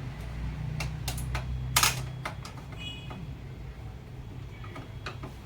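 A string of irregular sharp clicks and knocks over a low steady hum, the loudest knock just before two seconds in, with a brief faint high tone about three seconds in.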